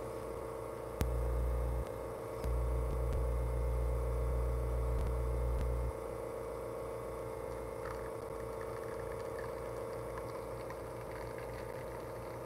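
Lelit Bianca espresso machine's rotary pump running steadily through an espresso shot, a constant hum, while the shot is under manual flow control. A deeper rumble joins it from about a second in until about six seconds in, after a brief break near two seconds.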